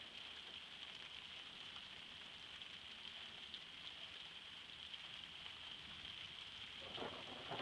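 Steady rain hissing during a thunderstorm, with a low rumble of thunder setting in near the end.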